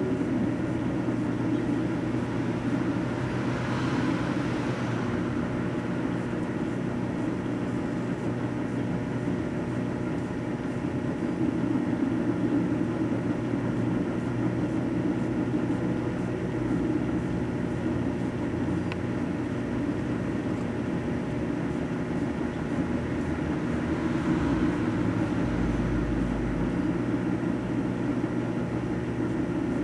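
Microwave oven running with a steady electrical hum while a computer mouse heats inside, with faint hissing swells twice.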